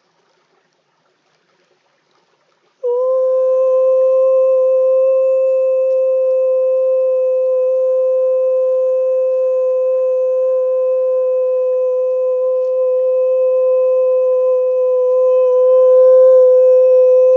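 Near silence, then about three seconds in a singing bowl tone starts suddenly and rings on as one steady, sustained note with faint overtones and a slight pulsing waver.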